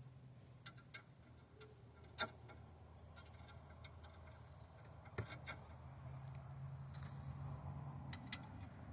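Scattered light metallic clicks and knocks of car suspension parts and bolts being handled and fitted by hand, the sharpest about two seconds in, over a faint steady low hum.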